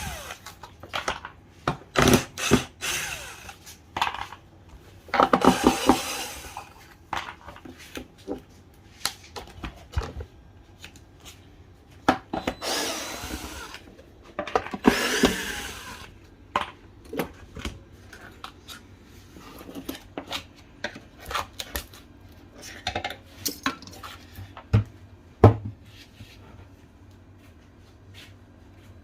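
Repair work on a car-audio amplifier and subwoofer system: scattered clicks, taps and knocks of tools and parts being handled, with a few short one-to-two-second runs of a small power tool.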